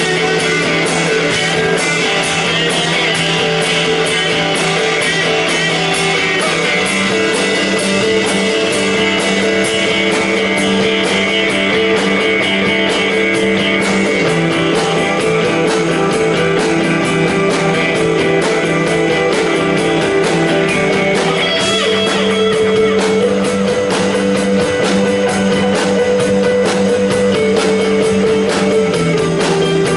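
Live rock band music led by guitars, with sustained notes over a fast, steady pulse; the notes shift a little past the middle.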